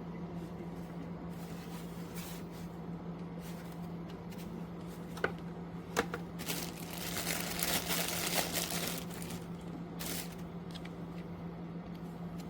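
Steady low hum of a small box fan running. Two sharp clicks come about five and six seconds in, followed by a few seconds of rustling and crinkling handling noise.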